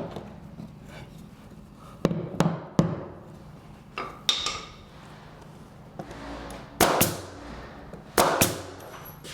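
A wooden shim being tapped in behind baseboard trim with a hammer to close a gap at the wall. It gives sharp knocks in short clusters of two or three, and the loudest strikes come in the second half.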